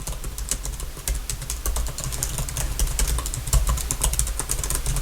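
Rapid typing on a computer keyboard: a dense, uneven run of crisp key clicks, over a steady low rumble.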